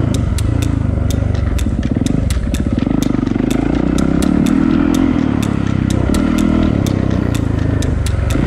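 Dirt bike engine running as the bike is ridden, its pitch rising and falling with the throttle, with frequent sharp clicks.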